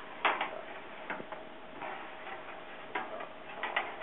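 Metal baking trays clinking and knocking against wire oven racks as they are pushed into place: a scattered series of sharp clicks and knocks, the loudest just after the start. A faint steady hum runs underneath.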